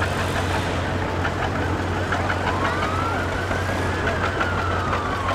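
An emergency vehicle's siren gives one slow wail. Starting about halfway through, it rises for about a second and a half and then glides slowly back down. A steady low hum runs underneath.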